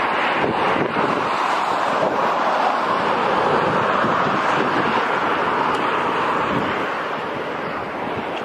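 Steady rush of wind buffeting the microphone while moving at driving speed, with no distinct engine tone.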